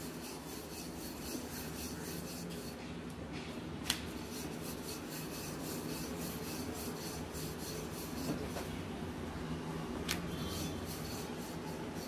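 Wooden rolling pin rolling out a dal-stuffed paratha on a marble rolling board: a steady rubbing and scraping of dough under the pin, with two light clicks, about four and ten seconds in.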